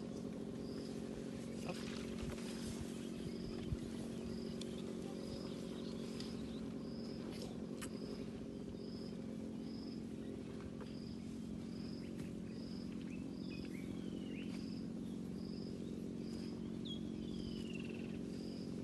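A steady low purring drone throughout, with a short high chirp repeating about once a second.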